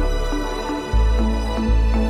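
Instrumental background music: a deep bass note changing about once a second under a repeating higher note pattern.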